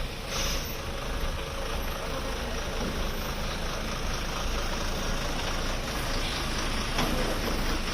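An engine running steadily at low revs, with a rough, noisy rumble.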